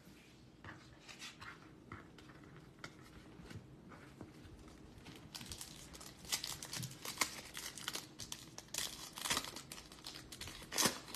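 Foil wrapper of a baseball card pack crinkling as it is handled and torn open: faint rustles at first, then a denser run of crackling from about halfway in, loudest near the end.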